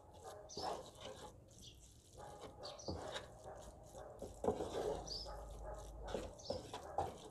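Wooden spatula scraping and knocking against a coated frying pan as sticky instant noodles are stirred through their sauce, in irregular strokes.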